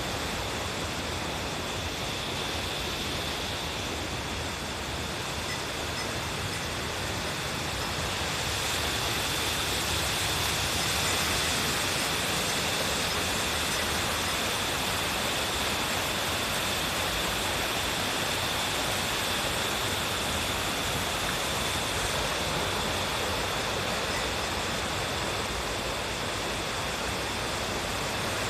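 Waterfall cascading: a steady rush of falling water, growing a little louder about eight seconds in.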